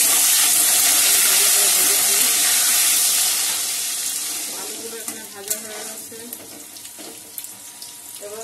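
Potato wedges sizzling in hot oil in a kadai, loud at first and dying down after about three or four seconds, with a few clicks of the metal spatula against the pan in the second half.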